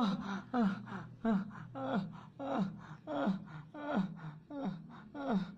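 A man gasping for breath over and over, each gasp a short cry that falls in pitch, just under two a second, the laboured breathing of someone lying badly hurt.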